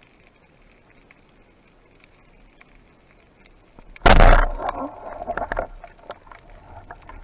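A sudden loud burst about four seconds in, trailing off over about a second and a half into scattered crackling and clicks.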